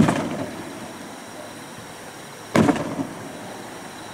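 Aerial firework shells bursting: two loud bangs about two and a half seconds apart, each dying away over about a second with a little crackle.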